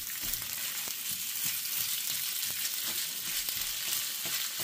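Leftover homemade chilli sizzling steadily in a little oil in a hot skillet, with scattered light scrapes and taps as a spatula stirs and turns it to warm it through.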